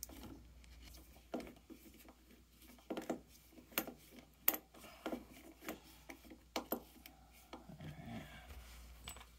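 Faint, irregular light clicks and scrapes of a metal bolt being threaded by hand into an e-bike's foot-peg mount.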